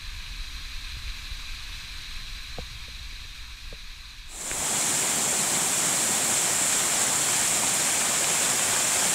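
Small waterfall splashing over a rock ledge into a pool, a steady rush of water. For the first four seconds it is faint under a low rumble; then it suddenly becomes loud and even, as if heard from much closer.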